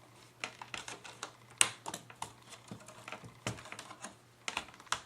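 Plastic laptop screen bezel being pried and pushed at its stuck bottom clip: a run of irregular sharp plastic clicks and snaps, the loudest about one and a half seconds in.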